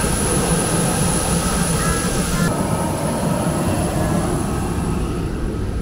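Steady jet airliner noise on an airport apron: a continuous low rumble with a thin high-pitched whine over it.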